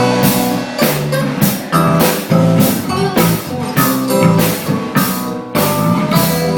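Instrumental rock passage with drum kit, guitar and bass, the drums hitting in a steady beat.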